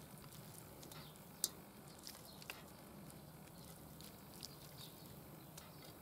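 Raw beef chunks being laid by hand into an empty cast-iron kazan: faint soft pats and light clicks, with one sharp click about a second and a half in.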